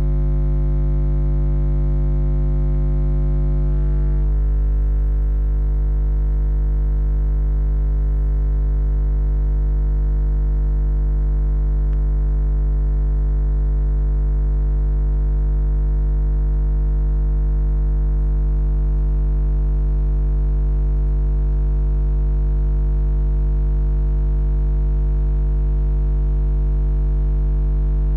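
Background music: a held synthesizer chord that shifts to a new chord about four seconds in.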